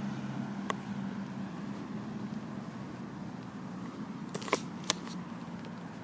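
Ambience of a school sound walk: a steady low hum with a faint background haze, broken by a single sharp click about a second in and a quick cluster of sharp clicks or knocks about four and a half seconds in.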